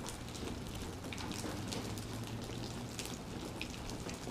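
A pile of finger mullet flopping on wooden dock boards, a dense irregular tapping like rain, as a cast net is shaken out over them and fish and water drop from it. A low steady hum runs underneath.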